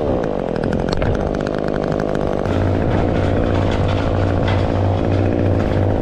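Top-handle petrol chainsaw idling after a cut, with a deeper steady engine hum joining about two and a half seconds in.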